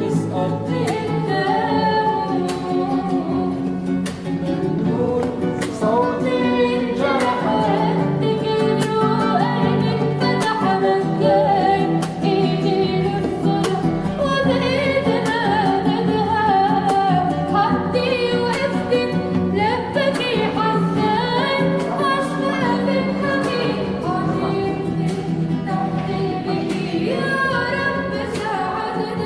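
A girl singing a melodic song over guitar accompaniment, her voice sliding and ornamenting between notes over sustained low instrumental tones.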